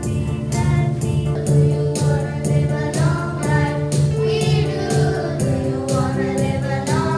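A song with singing voices over a steady beat of about two strokes a second.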